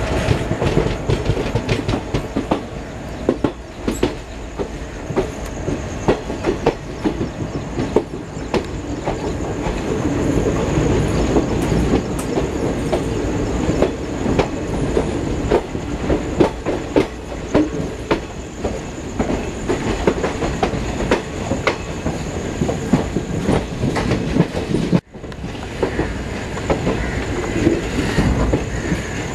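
Wheels of a moving passenger train clattering over rail joints and points, heard from aboard: a steady rumble with rapid, irregular clicks. The sound breaks off for an instant about 25 seconds in.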